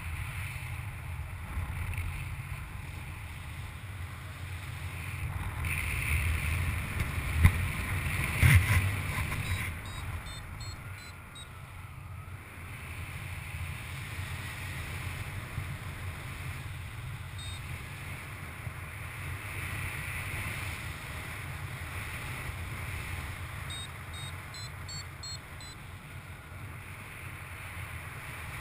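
Airflow buffeting the microphone during paraglider flight: a steady rumbling wind rush. A couple of sharp knocks come about a third of the way in, and faint high beeps sound in two short clusters.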